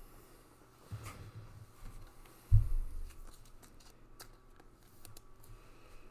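Sports cards being handled over a tabletop, with soft knocks and light rustling; the loudest is a single dull thump about two and a half seconds in.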